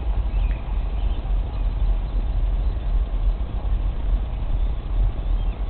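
Wind buffeting the microphone: a loud, rough low rumble that rises and falls, with a few faint high chirps.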